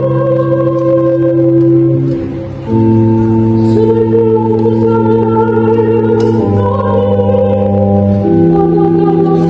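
Organ playing a slow hymn in long held chords, moving to a new chord every few seconds, with a brief drop in level between chords about two and a half seconds in.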